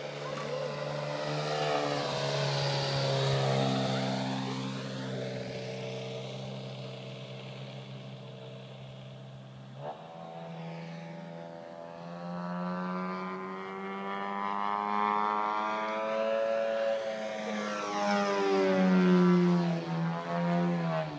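Radio-controlled aerobatic model biplane's engine and propeller running in flight, one steady engine note whose pitch rises and falls as the plane manoeuvres and passes. It is loudest near the start and near the end, and the note jumps suddenly about halfway through.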